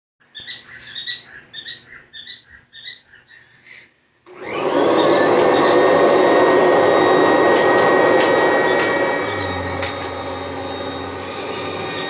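A series of short, high chirps, then a Kirby G4 upright vacuum's motor switches on about four seconds in with a rising whine as it spins up, and runs loud and steady. Near nine seconds its sound eases a little and a low hum comes in.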